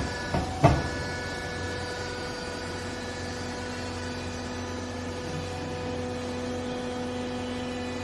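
Hydraulic pump motor of a vertical clothes baler running with a steady hum while the baling chamber lifts off a finished bale. A sharp clunk comes a little under a second in, as the control button is pressed and the lift starts.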